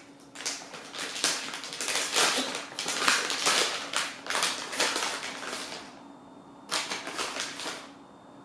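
Plastic bag of shredded mozzarella crinkling and rustling as it is pulled open and handled, in a run of crackly bursts for about six seconds. One more short rustle comes near the end.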